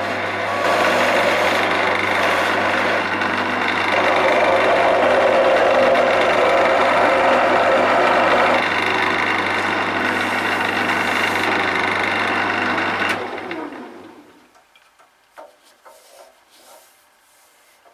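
Wood lathe running with a steady motor hum while a turning tool cuts the spinning wooden blank, a continuous rough scraping that swells and eases. About 13 seconds in the lathe is switched off and winds down within a second or so, followed by a few light knocks and clicks of handling.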